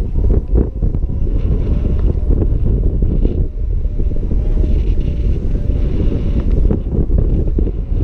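Wind noise on the camera microphone of a paraglider in flight: a loud, gusting low rumble of airflow.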